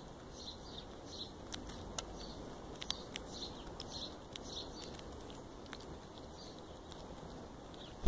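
Starlings and a blackbird pecking at mealworms in the grass close by, heard as scattered sharp ticks, while a bird chirps repeatedly in the background, about every half second or so. All of it is faint.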